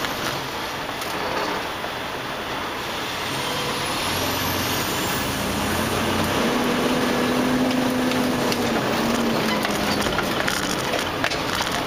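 Semi-truck running, heard from inside the cab: a steady engine and cab rumble that grows a little louder about halfway through.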